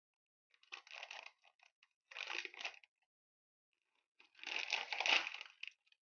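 Foil-lined plastic snack packet crinkling in the hands in three bursts. The last and loudest comes about four seconds in, as the packet is torn open.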